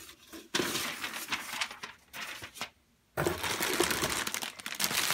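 A clear plastic bag and shredded crinkle-paper filler rustling and crackling as the bag is lifted out of a cardboard box, with a brief drop to silence just before three seconds in.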